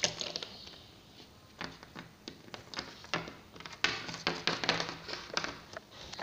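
Hard plastic toy figurines tapped on a tabletop as they are moved by hand: a patter of light clicks, busiest about two seconds in and again from about four to five and a half seconds.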